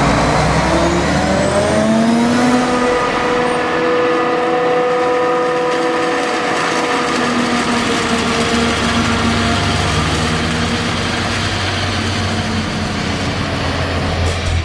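Farm-machine engine sound effect revving up over the first two seconds or so, then running steadily at high revs.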